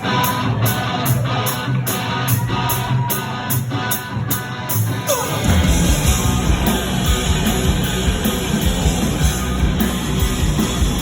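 Live rock band with electric guitar playing a song intro in even pulses, about three a second; about five seconds in, the full band with drums and bass comes in, much heavier.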